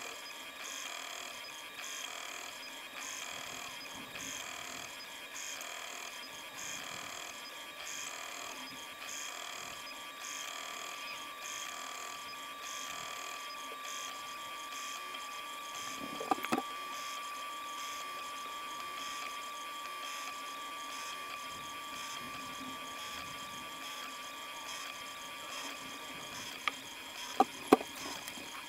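Prusa Mini+ 3D printer running a print: stepper motors and cooling fan give a steady whine with a pattern repeating about every half second or so. A few sharp clicks come about halfway through and again near the end.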